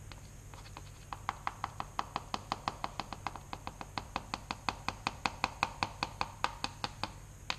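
Rapid, even tapping on a plastic funnel set in the neck of a water bottle, about four to five taps a second, knocking a drink mix down through the funnel.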